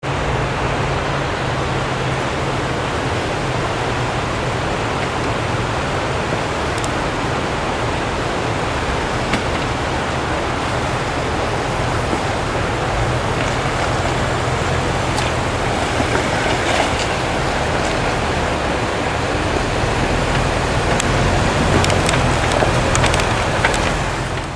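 A Jeep's engine running low and steady under a loud, even hiss, with a few faint knocks.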